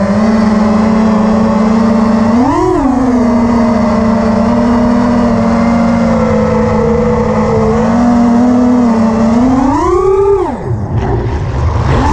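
Brushless motors of a 5-inch FPV quadcopter (Armattan Oomph 2206 2300kv spinning HQ 5x4.3x3 props) whining at a steady cruising throttle. A quick throttle punch about two and a half seconds in makes the pitch swoop up and back. Near the end the pitch climbs again and then drops sharply as the throttle is cut.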